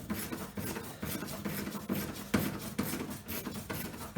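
Socket ratchet working a 10 mm bolt inside a car door, with repeated short clicks and scraping strokes about three a second. The bolt keeps turning without coming free, which may mean a very long thread or a stripped thread.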